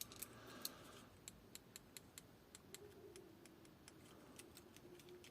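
Faint clicks of a car alarm remote's newly fitted tactile micro switches being pressed again and again in an irregular string, as the buttons are tested after replacement.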